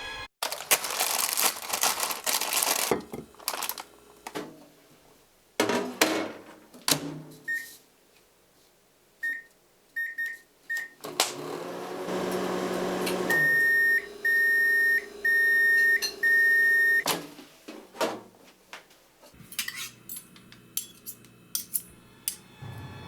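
A microwave oven being worked: handling noise and clicks, a quick row of short keypad beeps, its hum running for about two seconds, then five long beeps in a row, followed by more clicks and clatter.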